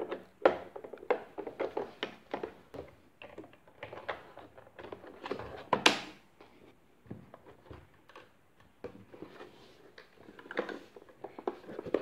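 Irregular plastic clicks, knocks and rattles as the main roller brush and its yellow brush-guard frame are fitted back into the underside of a robot vacuum, with one sharp snap about six seconds in as the frame is pressed into place.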